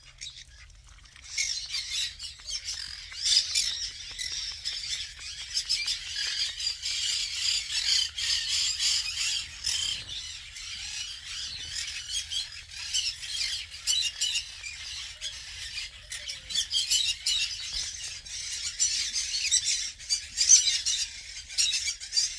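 Parrots squawking and chattering, many short shrill calls overlapping into a steady din that starts about a second in.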